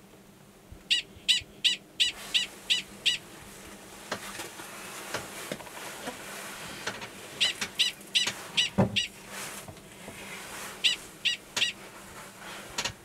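Male Gunnison's prairie dog giving a mating call: three bouts of rapid, high-pitched barks, about three a second, of roughly seven, six and four barks, over a steady rushing noise, with a low thump about nine seconds in. The mating call sounds identical to the species' alarm call; the male gives it before going below to mate with an estrous female in a nearby burrow.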